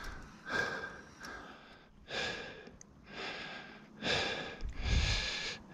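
A mountain biker's heavy breathing close to the microphone: about five hard breaths in a row, roughly one a second.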